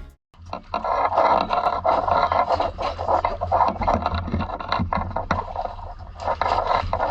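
Sea lions barking in repeated rough calls, several a second, over a steady low hum.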